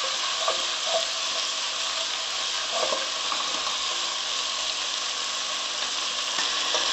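Chopped onions and tomatoes sizzling steadily in hot oil, stirred with a spatula, with a few short scrapes in the first half.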